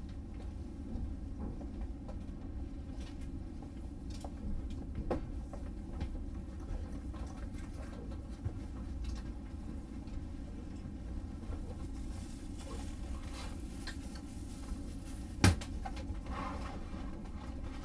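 Inside the cabin of a Tobu 500 series Revaty limited express: a steady low hum with scattered light clicks and rustles, and one sharp knock about fifteen seconds in.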